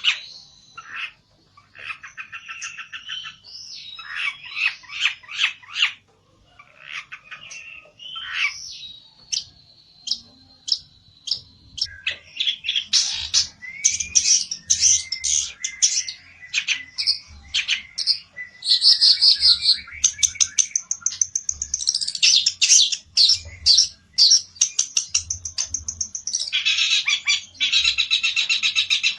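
Pelentet songbird calling excitedly in fast runs of repeated chirps and trills, with brief pauses, louder and denser from the middle on: its agitated, challenging song toward a rival.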